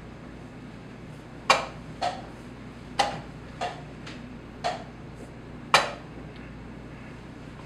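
Wooden chess pieces set down on the board and chess-clock buttons slapped during fast blitz play: about half a dozen sharp knocks and clicks at uneven intervals, with fainter taps between.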